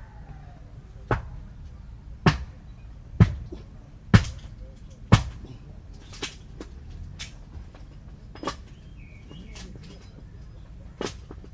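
Five loud, sharp knocks about a second apart, then a few fainter, irregular ones.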